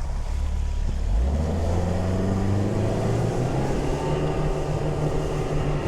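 A boat's outboard motor throttling up, its pitch rising from about a second in, then running steadily at speed.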